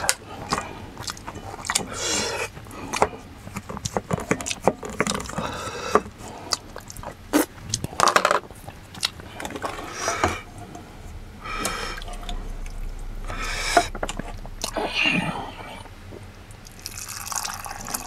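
A wooden spoon knocking and scraping in stainless steel bowls and a pot while duck-bone stew is ladled, with liquid splashing and dripping. Near the end, stew is poured from a steel saucepan into a bowl.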